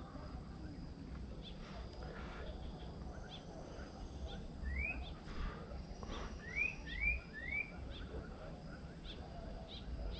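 Quiet outdoor ambience with a bird calling: four short rising chirps in the middle, over a low rumble.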